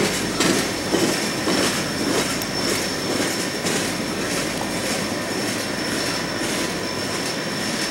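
Freight train of tank cars rolling past, its wheels clicking over rail joints about twice a second, more faintly toward the end, with a steady high-pitched wheel squeal over the rumble.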